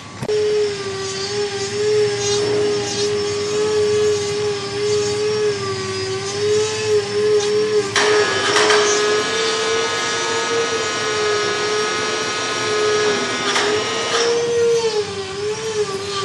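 Electric power tool motor running with a steady whine that wavers slightly in pitch, with short bursts of harsher noise about halfway through and twice more near the end.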